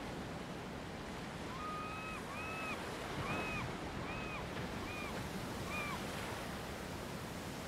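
Sea surf: a steady rush of waves. Partway through, six short calls of the same pitch, each a brief held note, come a little over one a second.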